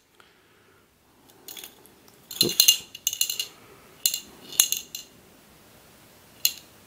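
Small steel ball bearings rolling and clicking against each other and the clear plastic walls of a 1993 Chadwick Miller ball-bearing dexterity cube as it is tilted by hand. The clicks come in short clusters, loudest about two and a half seconds in, with a last single click near the end.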